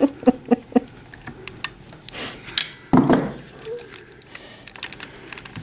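Small metallic clicks and clinks of hand tools and harness clips being worked on an engine's wiring. A person laughs briefly in the first second, and there is a short vocal sound about three seconds in.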